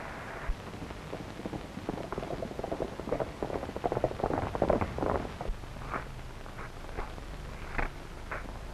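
Irregular patter of hoof and foot falls on dirt and stony ground, densest in the middle, thinning to a few separate sharp clicks near the end, over the steady hiss of an old film soundtrack.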